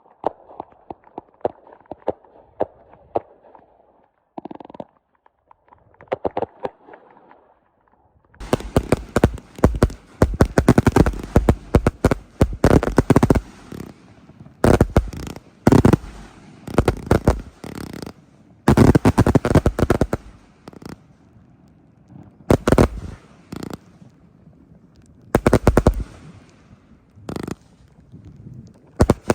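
Fireworks going off: scattered fainter pops and crackles, then from about eight seconds in, volleys of rapid loud bangs, each lasting from half a second to several seconds, with short gaps between them.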